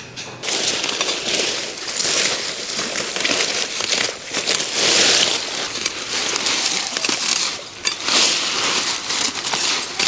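Woven strips of a hand-made back basket rustling and crackling as it is worked, in repeated swells every second or two.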